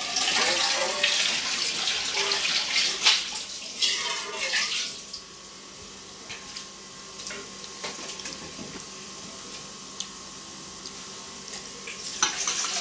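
Water running and splashing for about five seconds, then a few light clicks and knocks, with another short splash near the end.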